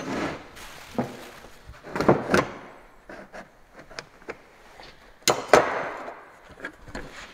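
Steel combination square and steel flat-bar straps handled on a wooden workbench: scattered knocks and clinks of metal on metal and wood, the loudest coming in close pairs about two seconds in and about five seconds in.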